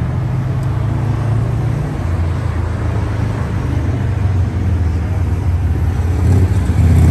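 Road traffic passing close by: vans and cars driving past with a steady low engine rumble, louder near the end.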